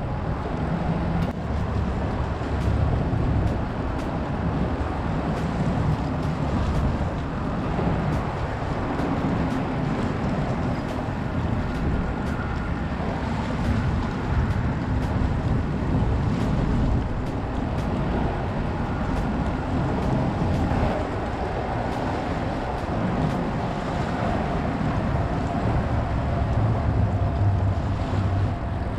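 Wind buffeting the microphone over choppy bay water lapping against a rocky seawall: a steady low rumble with a wash of waves.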